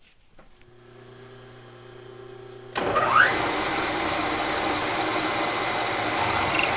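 Milling machine running with a steady hum, then about three seconds in a much louder, rough, steady cutting noise as the end mill bites into the metal part.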